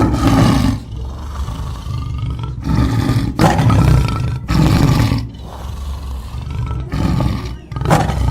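Lion roaring: a string of about six loud calls, each half a second to a second long, with short gaps between them.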